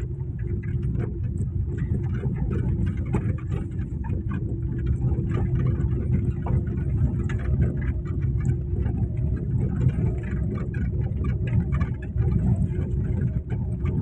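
Car running over a bumpy dirt field track, heard from inside the cabin: a steady engine hum and low road rumble, with scattered short knocks and rattles as it bounces over the ruts.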